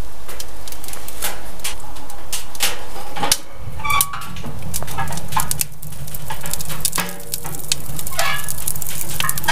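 Pine wood fire burning hot in a wood stove, crackling with many sharp pops and snaps over a steady rushing draft.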